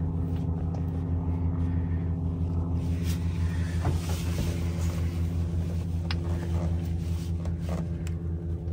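A motor running with a steady low hum, unchanged throughout, with a few faint light clicks from the NOx sensor being threaded in by hand.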